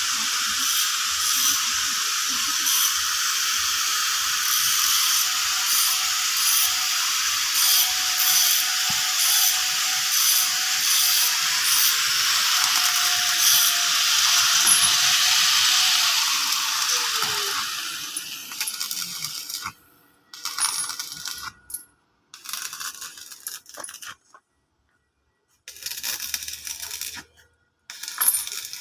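Angle grinder working steel: a steady, crackling hiss that dies away as the motor spins down with a falling whine. Several short bursts of grinding follow.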